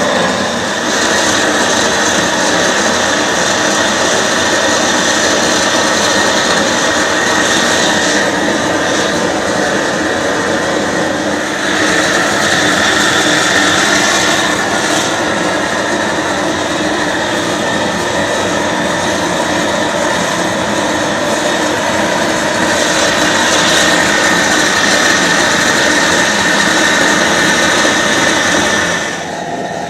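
Gas torch flame burning with a steady, loud rushing hiss while heating a copper boiler for silver soldering. The hiss eases a little near the end.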